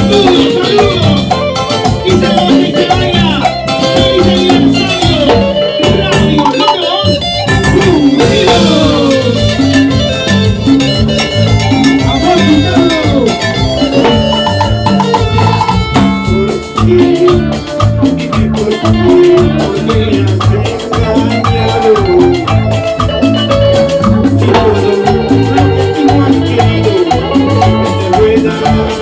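Live Latin dance band playing a steady, rhythmic number with percussion.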